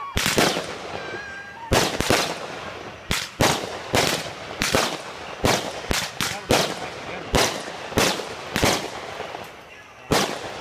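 Aerial fireworks bursting overhead: an irregular volley of sharp bangs, one to three a second, that thins out near the end.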